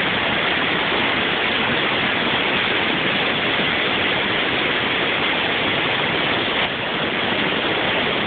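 Mena Creek waterfall in flood, a loud, steady rush of heavy falling and churning water.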